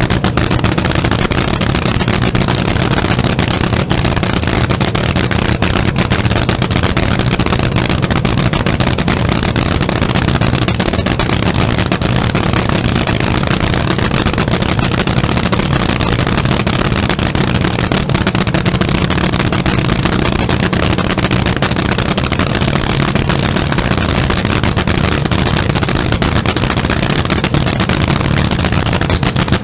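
Top Fuel dragster's nitromethane-burning V8 idling loud and steady, with no revving.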